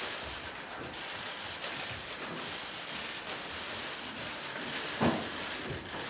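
Dense, steady patter of camera shutters and laptop keys clicking, with one louder knock about five seconds in.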